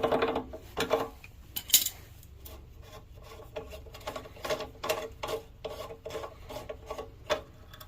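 A wrench working the nut loose on a generator's fuel shut-off valve: a run of irregular metallic clicks and scrapes, metal rubbing on metal, loudest in the first couple of seconds.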